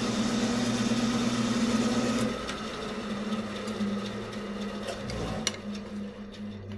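Bandsaw running with a steady hum. About two seconds in the sound drops and a lower, wavering hum carries on, with a few light knocks of wood being handled near the end.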